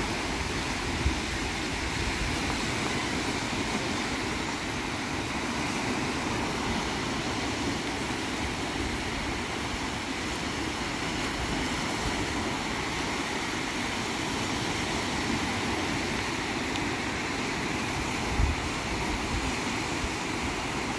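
Small waves washing onto a sandy shore, a steady rushing, with two brief low thumps about a second in and near the end.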